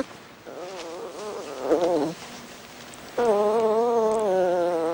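Sloughi puppy whining in two long, wavering cries, the second louder and starting about three seconds in.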